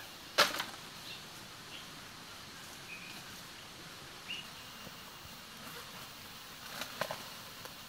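A sharp knock or crack about half a second in, the loudest sound, and a quicker pair of clicks near the end, over a steady hiss with a few short, high chirps.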